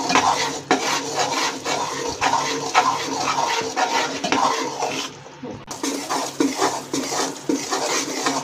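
Metal spatula stirring and scraping thick roasted gram flour in ghee around a large metal kadhai, a steady run of scrapes and clinks against the pan, with a brief lull about five seconds in. The mixture is being stirred off the heat so it doesn't stick to the bottom.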